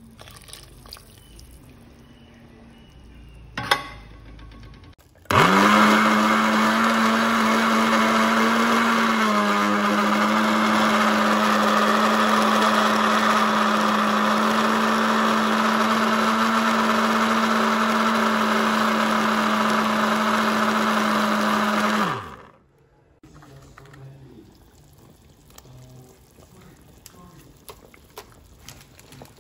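Countertop electric blender grinding dry, crumbly ingredients. The motor starts abruptly, runs at a steady high speed for about seventeen seconds with a slight drop in pitch early on as the load settles, then spins down. A sharp click comes shortly before it starts.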